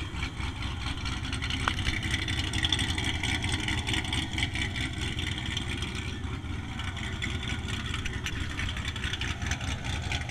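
Chevrolet C7 Corvette's V8 running at low revs, a steady low exhaust rumble from its quad tailpipes as the car creeps forward, slightly louder a couple of seconds in.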